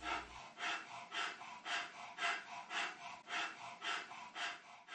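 Bull terrier huffing and snorting in a steady rhythm, about two sharp breaths a second.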